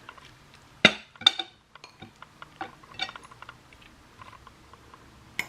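Utensils clinking and knocking against dishware: two sharp knocks about a second in, then scattered lighter clicks.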